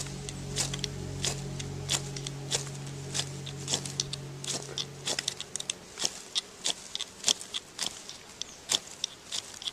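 Ferrocerium rod being struck with a striker to light a dry-grass tinder nest: repeated short, sharp scrapes, a few a second and irregular. A low steady hum underneath stops about halfway through.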